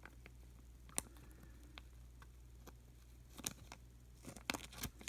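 Faint, scattered clicks and light taps of a baseball card and a plastic card sleeve being handled, with a sharper click about a second in and a few more near the end.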